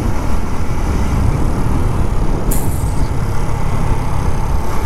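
Motorcycle riding noise: wind buffeting a helmet-mounted microphone over the running engine. A brief high hiss comes about halfway through.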